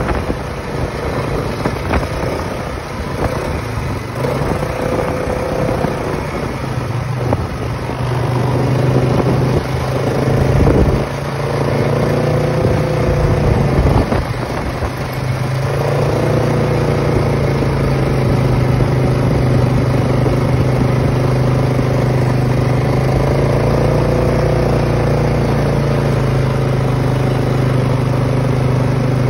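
Polaris ATV engine running while the machine is ridden, its pitch rising and falling several times as the throttle changes. In the second half it settles into a steady hum.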